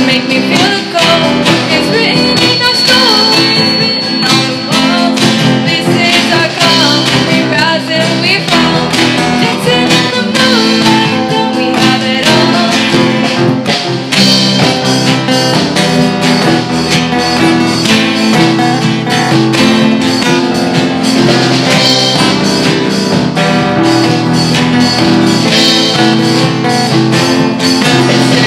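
Live student band playing a song: acoustic guitars strumming, with girls singing into microphones. A brief thin high tone sounds from about two seconds in.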